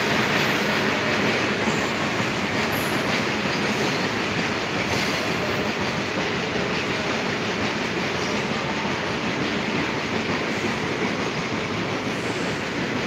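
A train running along the tracks beneath the station footbridge: a steady noise of wheels on rails that eases slightly toward the end.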